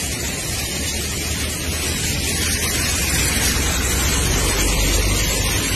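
Steady loud rush of flood water, growing louder about three and a half seconds in.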